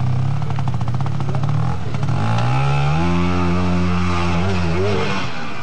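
Trials motorcycle engine running at low revs with a steady putter, then revving up about two seconds in and holding at higher revs under load on a steep climb, easing off near the end.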